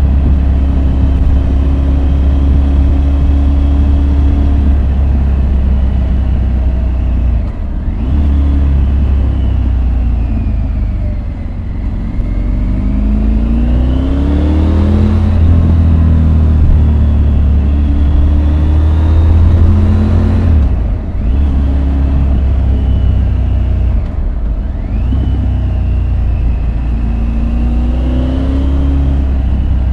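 Triumph Tiger 850 Sport's inline three-cylinder engine pulling hard through the gears, its note rising and falling with brief drops at gear changes, over a steady low rush of wind.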